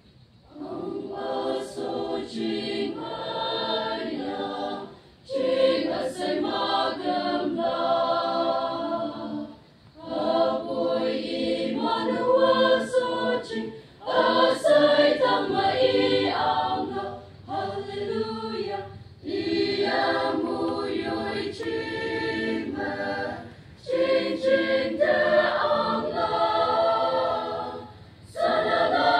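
A choir singing, starting about a second in, in phrases separated by short breaths every four to five seconds.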